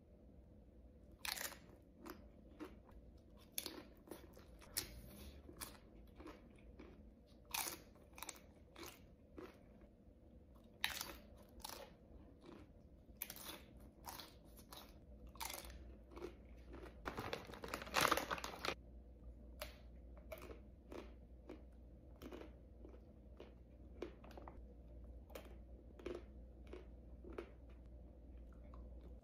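Close-miked eating: crunchy bites and chewing, with a sharp crackling crunch every second or so. A longer, denser run of crunching a little past the middle is the loudest part.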